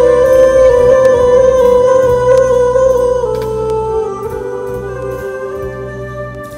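A man singing a long held note over soft backing music. About three seconds in, the note steps down in pitch, and the music then slowly fades.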